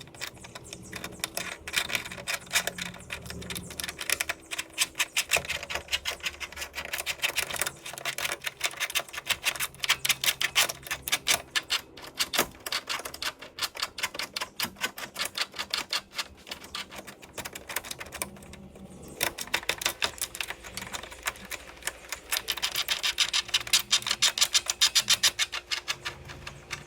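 Ratchet wrench clicking in fast runs of sharp ticks while a hood pin's mounting nut is tightened, pausing briefly about two thirds of the way through.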